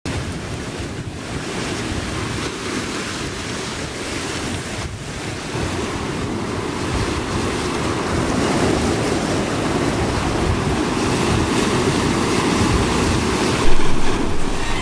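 Rough sea surf washing over rocks, with wind, slowly growing louder. A loud wave crash comes near the end.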